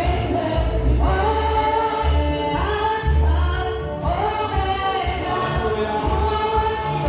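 Gospel music: voices singing together over an instrumental backing with a pulsing bass.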